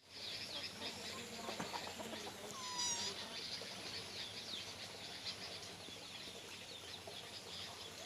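Small birds chirping repeatedly in short high notes, with one short kitten meow about two and a half seconds in.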